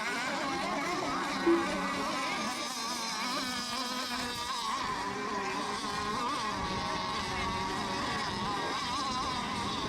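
Several radio-controlled racing boats' small high-revving engines whining together, their pitches wavering up and down as they run laps. A brief loud blip comes about a second and a half in.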